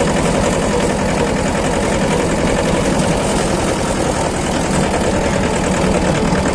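Mahindra Jivo 245 DI 4WD mini tractor's two-cylinder diesel engine running steadily while the tractor drives along a dirt track, heard from the driver's seat.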